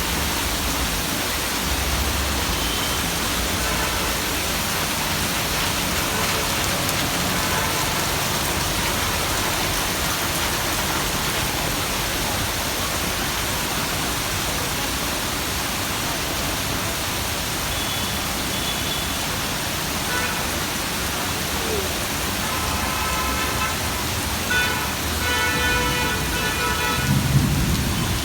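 Heavy rain falling in a steady downpour. Near the end a vehicle horn sounds over it.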